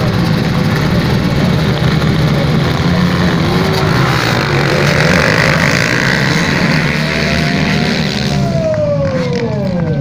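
A pack of motocross bikes racing off the start, many engines running hard at high revs together. Near the end, bikes pass close by, their engine pitch falling.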